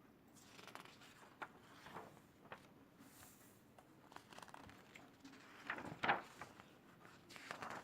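Faint rustling and light taps of paper pages being handled and turned in a large coloring book, with one louder rustle about six seconds in.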